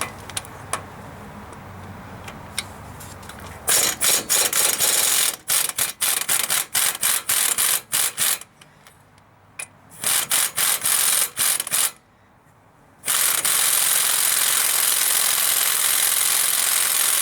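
Air ratchet backing out the bolts that hold the front hub to the steering knuckle. It starts about four seconds in with short stuttering bursts, pauses, gives a second run of bursts, then one long steady run near the end.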